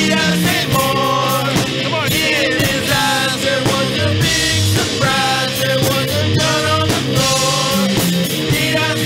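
Indie rock band playing: electric guitars, bass and drums.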